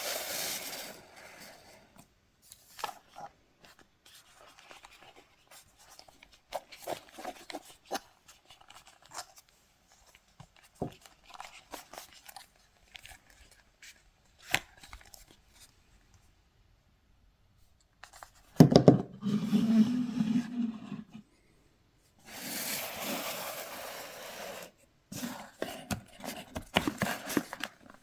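Cardboard and paper packaging being opened and handled: scattered rustles, scrapes and small clicks, then two louder stretches of tearing and sliding about two-thirds of the way through.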